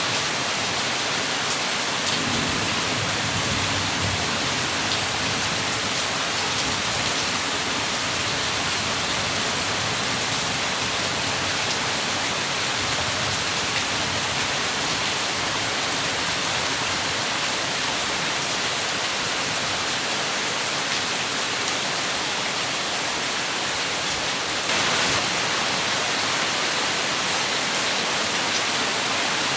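Heavy rain falling steadily, an even, unbroken hiss of water, a little louder for a moment near the end.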